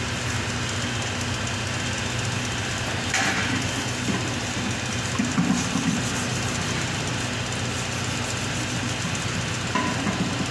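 Steady rushing background noise with a low hum, over which water splashes and hands rub on a wet brass statue a few times.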